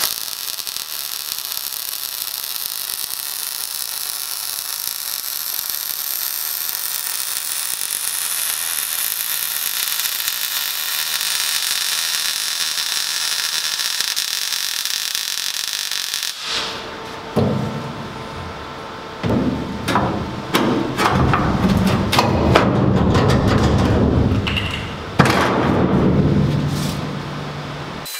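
MIG welder running a continuous bead along a steel roll-cage foot plate: a steady hiss for about sixteen seconds that cuts off suddenly. A run of irregular knocks, clatters and scrapes follows.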